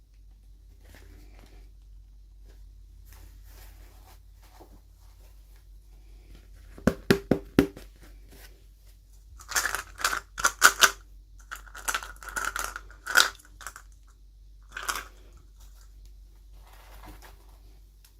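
Doll packaging being opened by hand. About seven seconds in come four quick, sharp clicks, then a run of short, scratchy rasps of cutting and tearing over a few seconds, and two more single rasps near the end.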